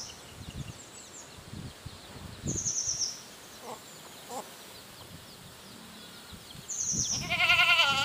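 A goat bleats near the end, a loud quavering cry. Before it come two short high chirping trills and a couple of faint low calls.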